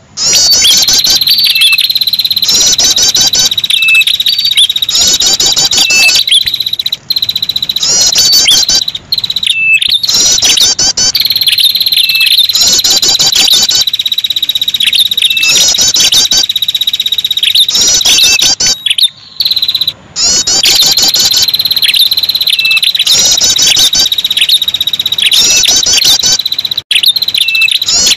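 Bird-lure recording of the prenjak kepala merah, a small songbird: a shrill, continuous buzzing trill with bursts of fast, higher chattering notes repeating every one and a half to two seconds. It cuts out briefly twice a little after the middle.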